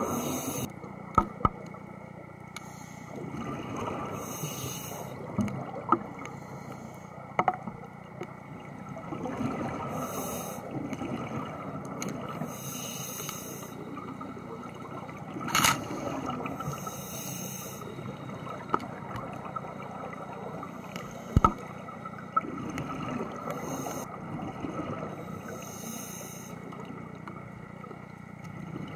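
Scuba diver breathing through a regulator underwater: a rush of exhaled bubbles every few seconds over a steady low hum, with several sharp clicks.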